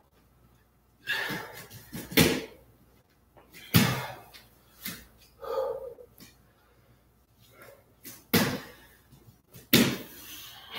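Hard, forceful exhales and effort grunts from two people doing push-ups on a floor mat, coming in about seven sharp bursts at uneven intervals.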